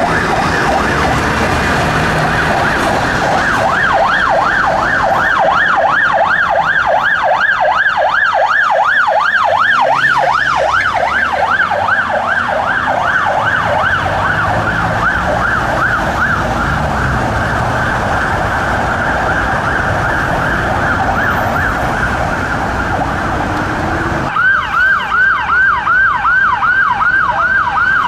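Police van siren sounding in rapid rising-and-falling sweeps, several a second, from a Vauxhall Vivaro police van moving through traffic, with road traffic rumble underneath. About 24 seconds in it cuts abruptly to a Mercedes Sprinter ambulance's siren, each sweep dropping sharply, about three a second.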